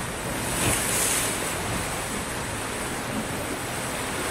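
Sea surf washing up a sandy beach: a steady rush of breaking waves that swells briefly about a second in.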